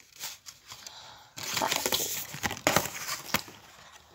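Pen packaging crinkling and rustling as it is handled, with a few sharp clicks among it; it starts quietly, gets louder about a second and a half in, and fades near the end.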